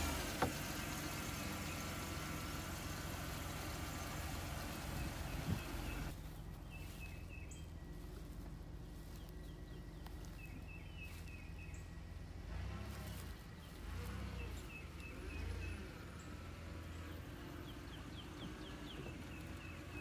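Car engine idling steadily with the hood open, stopping suddenly about six seconds in. After that, short runs of high bird chirps repeat over a faint low rumble.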